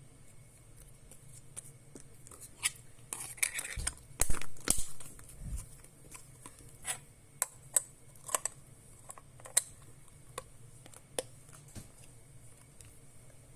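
Fruit-shaped gel slime being pressed and handled by hand, giving scattered sharp clicks and pops. A denser run of louder ones comes around four seconds in.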